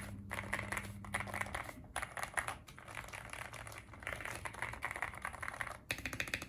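Mechanical keyboard fitted with Epomaker keycaps being typed on in rapid bursts of key clicks, with a few brief pauses.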